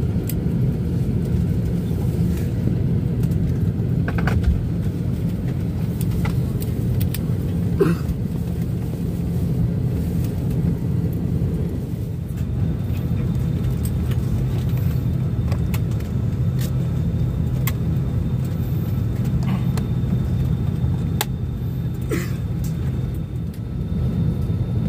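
Steady low hum of an airliner's cabin, heard from inside, with a few light clicks and knocks scattered through it.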